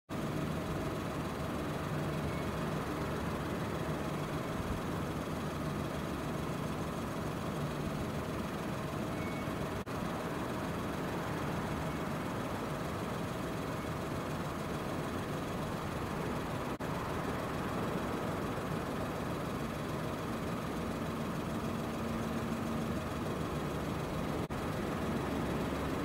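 Steady mechanical drone with hiss and a faint low hum, unbroken except for three very brief dropouts.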